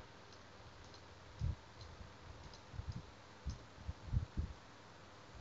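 Faint computer mouse clicks: a handful of short, soft taps scattered over a few seconds, more of them in the second half.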